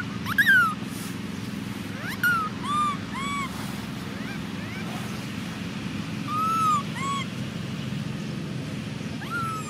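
Baby macaque giving a string of short, high, arching coo calls, about seven in all, with a longer one past the middle: an infant's contact calls. A steady low hum runs underneath.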